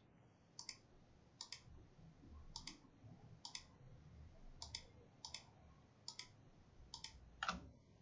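Computer mouse button clicking: about ten faint, crisp clicks at uneven intervals as shapes are picked one at a time.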